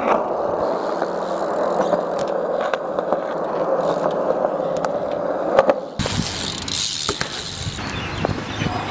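Wheels rolling over a concrete skatepark surface: a steady rolling rumble with light clicks. About six seconds in it switches abruptly to a brighter, hissier noise.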